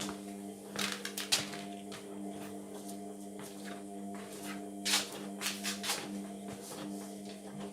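Indesit washing machine running mid-cycle: a steady hum with a few short swishes and knocks from the drum and laundry, about a second in and again around five seconds in.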